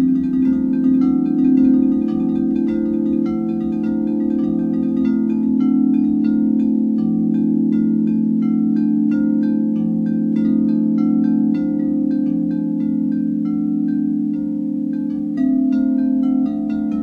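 White frosted quartz crystal singing bowls tapped with mallets in a quick run of short ringing notes, several a second, over a steady sustained hum from the larger bowls ringing on.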